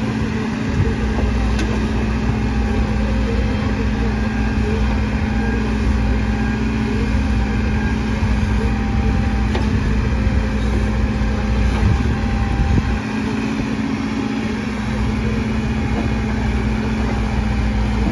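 Bull backhoe loader's diesel engine running steadily while the backhoe arm digs, a loud, even hum with a deep rumble that eases slightly about two-thirds of the way through.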